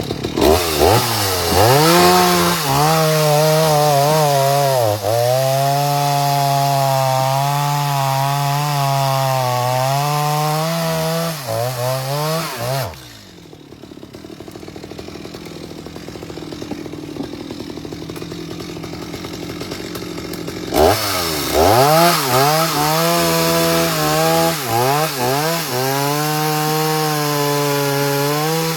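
Chainsaw running at high revs through wood, its pitch dipping and rising as it works the cut. About thirteen seconds in the engine winds down and drops away for about eight seconds, then revs back up and cuts again.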